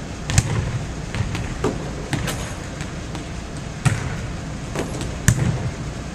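Volleyballs being struck and bouncing on a hardwood gym floor: a few sharp slaps that boom and echo in the gym, loudest about half a second in, near four seconds and just past five seconds, with fainter knocks in between.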